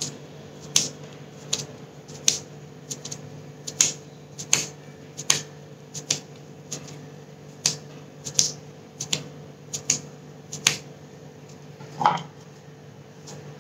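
Hands patting and pressing a stiff ball of wheat-flour dough, giving irregular sharp slaps about once or twice a second over a faint steady hum.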